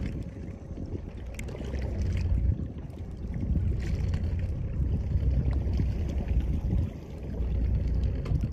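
Wind buffeting the microphone aboard a small boat at sea: a heavy low rumble that swells and drops in gusts.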